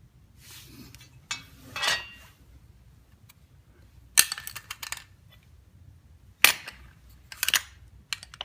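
Metal coilover parts being handled and set down: a rustle and scrape early on, then several sharp clanks and clinks of metal on metal, the loudest about four and six and a half seconds in.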